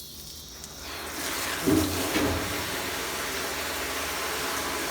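Water from a hose starting about a second in and running steadily into the metal drum of a Maxant honey extractor, filling it for a leak test. Two low knocks come soon after the flow starts.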